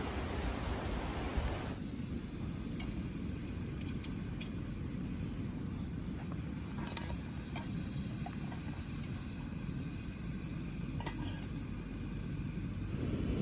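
Camping gas stove burner running steadily, a low rush with hiss, with a few light clicks.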